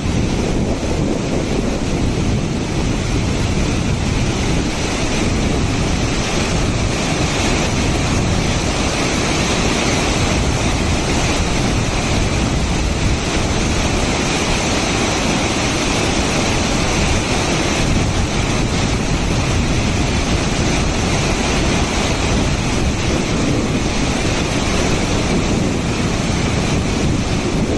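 Waterfall: a steady rush of falling water, loud and even throughout, heaviest in the low end, with some wind on the microphone.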